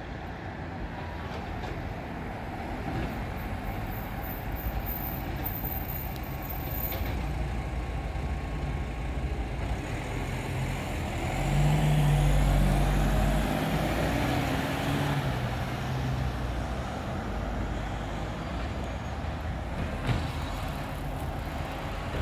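Iveco side-loader garbage truck's diesel engine running as it approaches slowly, over steady road noise; the engine gets louder for a few seconds around the middle.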